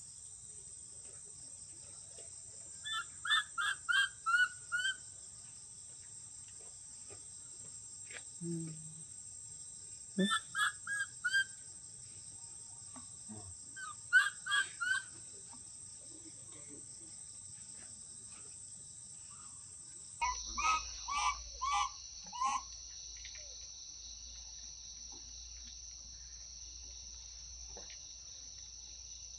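A steady, high-pitched drone of insects, which steps down slightly in pitch about two-thirds of the way through. Over it come four short runs of four to six quick, repeated call notes, the loudest sounds here.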